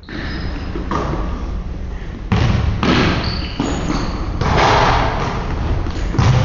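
Basketball bouncing on a hardwood gym floor amid players' running footsteps, a string of irregular thuds echoing in the large hall, busier and louder from about two seconds in.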